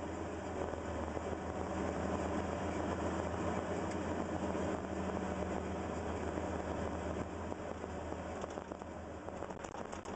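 Caterpillar 320L hydraulic excavator's diesel engine running steadily, heard from inside the operator's cab, with a few light rattles near the end.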